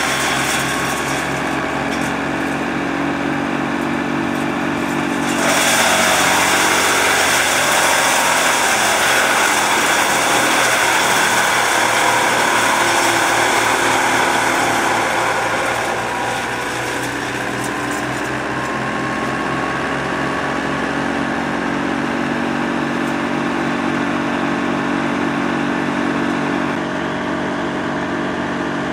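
Wood chipper shredder running with a steady engine drone; from about five seconds in it turns louder and harsher for some ten seconds, its pitch dipping as it takes load, then settles back to the steady run.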